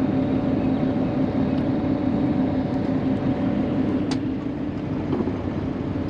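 Sailing yacht's inboard diesel engine running steadily at low speed, a hum over a low rumble. One sharp click comes about four seconds in.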